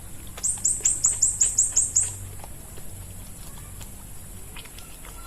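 A rapid run of about eight very high-pitched chirps, each sliding down a little in pitch, lasting under two seconds about half a second in, over a steady high hiss.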